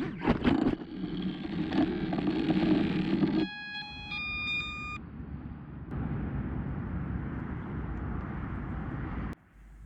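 Quadcopter's 2300KV brushless motors and propellers buzzing amid wind noise, with a few sharp knocks in the first second; the motor sound cuts out about three and a half seconds in and a short run of electronic beeps follows, then only wind noise remains.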